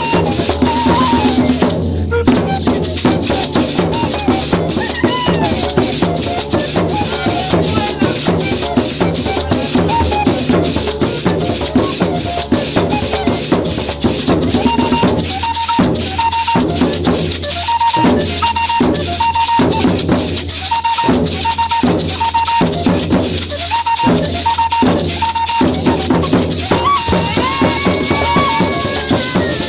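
Fandango folk dance music with a fast, steady shaken maraca rhythm over drums and a repeated high melody line.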